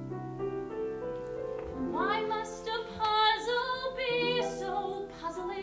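A woman singing a musical-theatre song over sustained accompaniment chords. The voice glides in about two seconds in and holds notes with vibrato.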